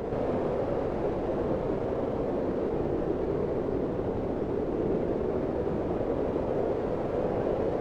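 Strong blizzard wind blowing steadily: a dense, even rush of noise, heaviest in the low-middle range, with no distinct gusts or whistling tones.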